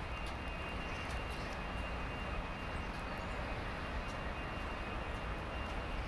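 Steady outdoor background noise: an even hiss with a low rumble underneath and a faint, steady high-pitched tone, with a few faint ticks.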